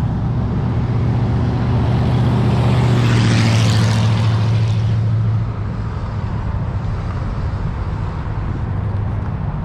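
Road traffic passing on a highway. A steady low engine hum builds as a vehicle passes close, with a rush of tyre and air noise about three to four seconds in, then drops away about halfway through, leaving lower, steady road noise.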